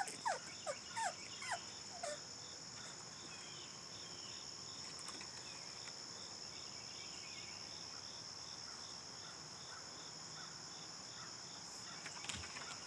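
Faint, steady high-pitched insect chorus with a regular chirp repeating about twice a second. A few short falling squeaks come in the first two seconds.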